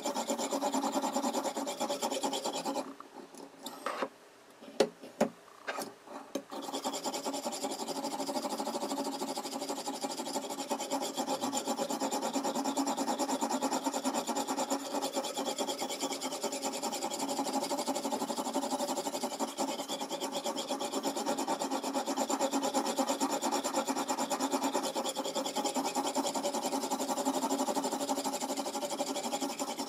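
Oil whetstone on a Toohr guided sharpening system scraping along a kitchen knife's steel edge, a steady rasping sound. A few seconds in it stops for about three seconds, with a few sharp clicks, then resumes.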